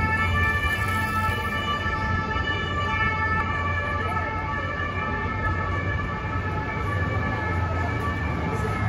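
Emergency-vehicle siren sounding as a set of steady high tones over the low rumble of city street traffic.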